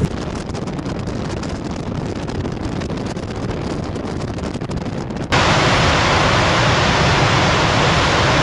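Wind buffeting the microphone, a gusty rumbling. About five seconds in it cuts abruptly to a louder, steady rushing roar of the Yellowstone River's Upper Falls.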